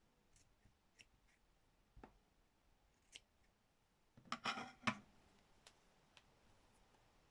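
Small scissors snipping the thread of a felted dog's stitched whiskers: faint clicks, then a short burst of cutting about four seconds in that ends in one sharp snip.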